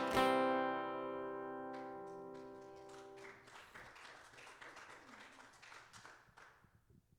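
Acoustic guitar strummed once on a final chord that rings out and slowly fades, ending the worship song. As it dies away there is faint scattered rustling and clicking.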